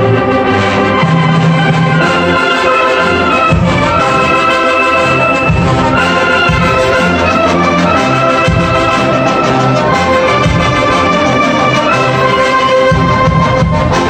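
Background orchestral music with long held notes.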